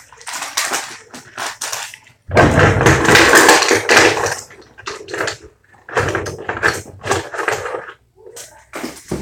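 Makeup items clattering and rattling as hands rummage through a drawer, in two long bouts of noise, the first about two seconds in and the second about six seconds in, with shorter knocks between.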